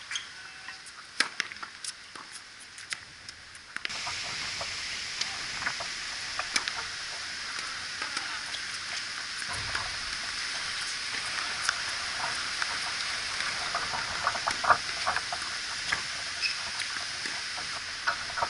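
Tennis rally on an outdoor hard court: sharp racquet-on-ball strikes and ball bounces. About four seconds in, a steady hiss starts suddenly and stays under the strikes.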